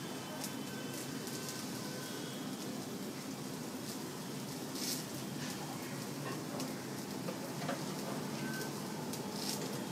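Uttapam batter sizzling gently in oil on a hot flat pan over medium heat: a steady hiss with small scattered pops and crackles.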